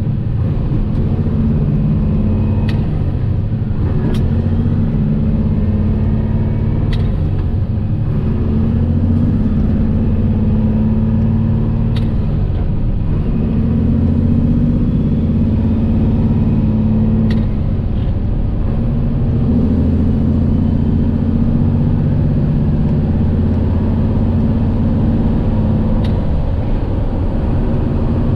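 Kenworth truck's high-mileage Cummins diesel engine pulling through the gears, heard from inside the cab; the engine note breaks and picks up again at each of several shifts. A few sharp clicks sound over it.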